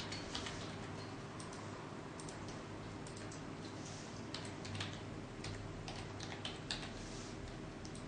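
Scattered faint clicks and taps at an uneven pace, from a signer's hands meeting and her lips moving as she mouths words while signing, over a low steady electrical hum.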